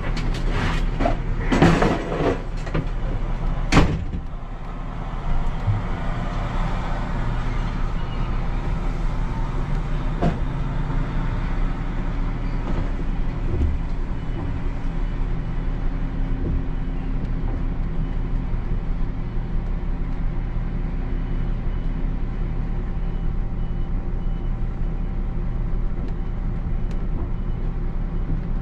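Regional train running, heard from on board: a steady drone from the engine and running gear. A few sharp knocks and clatters come in the first four seconds.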